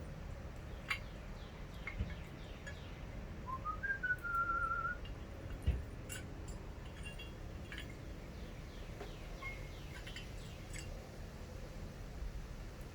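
A brief whistle that steps up in pitch and then holds with a slight waver, among faint, short, high chirps. A few light clicks come in between.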